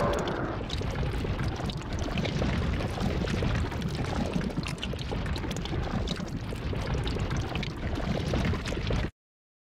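Liquid pouring in a steady gushing stream, a cartoon sound effect for pink liquid running down from a monster's head. It cuts off suddenly about nine seconds in.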